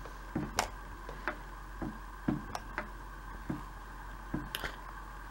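Faint, irregular soft clicks and taps, roughly two a second, over a steady low electrical hum.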